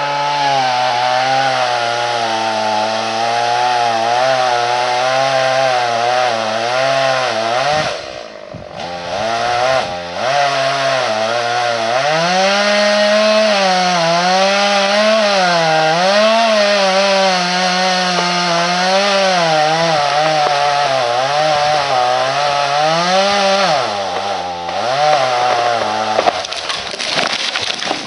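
Stihl MS 180 two-stroke chainsaw running at high revs while cutting wood, its pitch wavering up and down as the chain loads and frees. It eases off briefly about 8 and 10 seconds in, then cuts out shortly before the end.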